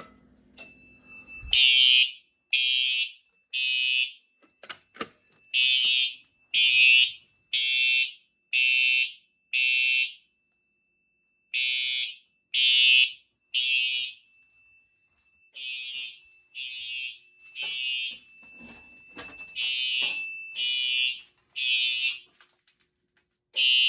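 Simplex TrueAlert fire alarm horns in alarm after a pull station is pulled: loud, high-pitched horn blasts about one a second, in groups broken by short pauses, over a thin steady high tone. A few sharp clicks come in the first seconds.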